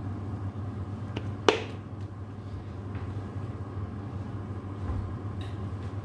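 A sharp plastic click about a second and a half in, with a smaller one just before it, as the plastic oil bottle is handled after pouring. A steady low hum runs underneath.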